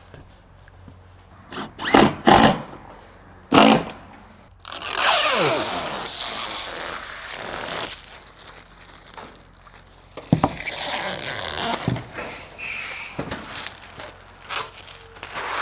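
Cordless drill driving screws in four short bursts, then a long crackling rip of clear protective plastic film being pulled free, followed by scattered knocks and rustling of the film.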